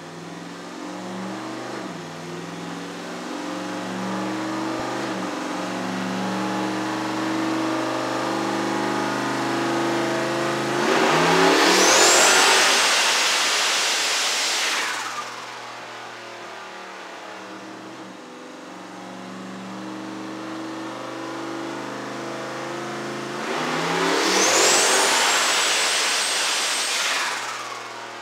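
Fox-body Ford Mustang's big single-turbo engine making two pulls on a chassis dyno. Each pull builds over several seconds until the turbo spools up with a loud hiss and a high rising whistle, then cuts off suddenly.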